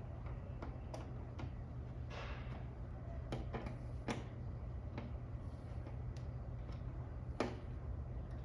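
Light, irregular clicks and taps of a T25 Torx driver working the windshield bolts, about ten in all, over a steady low hum.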